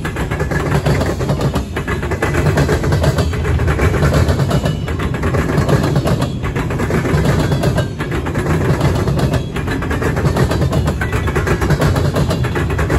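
Freight cars rolling past at trackside: a loud, steady rumble of steel wheels on rail, rising and falling about every second and a half as each car goes by.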